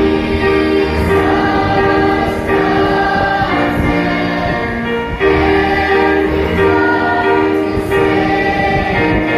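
Children's choir singing a slow song in long held notes, moving to a new note about every two to three seconds.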